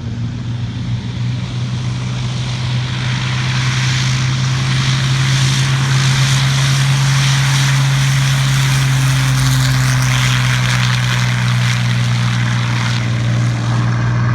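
Hawker Hurricane's Merlin V12 engine and propeller as the fighter flies past in a steady drone. It grows louder over the first few seconds and stays loud through the pass.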